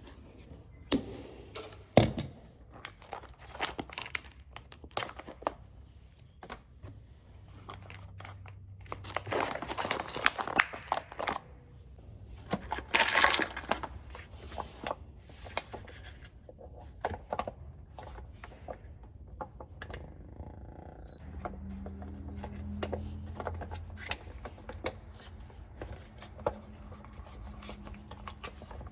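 Scattered clicks and knocks of hand work with tools and parts, with a stretch of crinkling and rustling about ten to fourteen seconds in, and a low steady hum joining in the last third.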